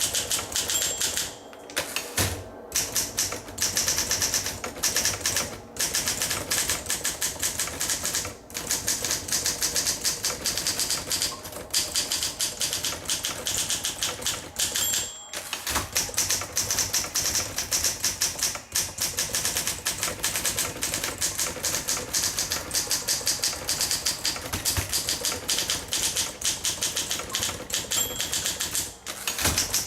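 A 1958 Olympia SM3 manual portable typewriter being typed on at a quick, steady pace, its keys striking several times a second. Three times a short ringing ping sounds, each followed by a brief break in the typing.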